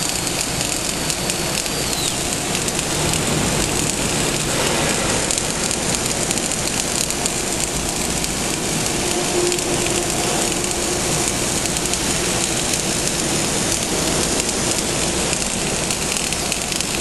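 Welding arc crackling and hissing steadily, a continuous dense sizzle of fine spatter crackle, as a carriage-mounted torch lays a weld.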